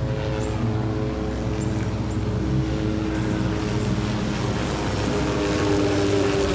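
Boat engine running steadily as the boat moves through floodwater, its pitch shifting slightly about five seconds in.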